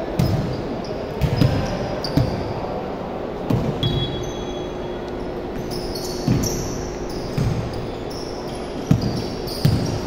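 Basketball bouncing on a hardwood gym floor in irregular thumps, mixed with short high squeaks of sneakers as players move on the court.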